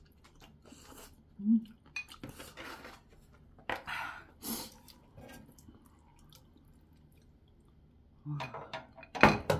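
A person eating ramen: chewing and slurping, with chopsticks knocking and scraping against a bowl and a pot. The loudest clatter comes near the end.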